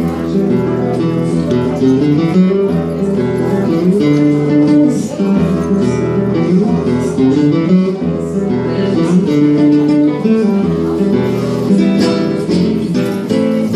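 Live acoustic music on a plucked guitar-family string instrument, strummed and picked steadily with a flamenco flavour. A sustained melody line slides between notes above the strumming.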